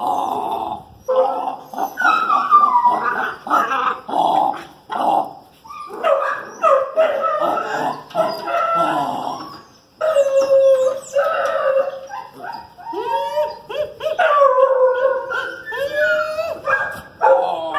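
Two Pit Monster puppies whining and yelping while they play, in a quick string of short calls that slide up and down in pitch.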